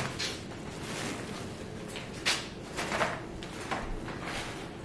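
Handling noises of a plush dog bed being pushed into a metal wire dog crate and settled: several brief scrapes and light knocks with fabric rustling.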